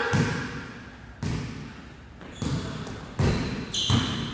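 Basketball bouncing on the gym floor as a player dribbles: a few irregularly spaced thuds, each echoing briefly in the hall, with a short high sneaker squeak near the end.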